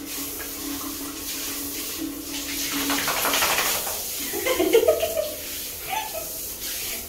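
Water running from a handheld shower head onto a dog in a small tiled shower, a steady hiss with a low hum under it, the spray growing louder for about a second around the middle. A few short pitched vocal sounds follow just after halfway.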